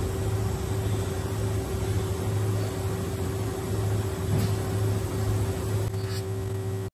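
Automated machining cell with its robot arm running, giving off a steady mechanical hum. It carries a constant tone and a low throb that pulses in and out at an even pace.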